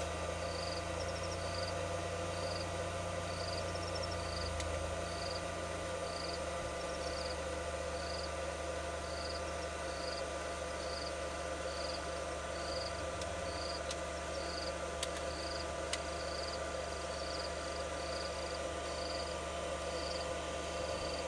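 Evenly repeated high chirps, about one a second, of an insect calling in the grass, over a steady low hum, with a couple of faint clicks.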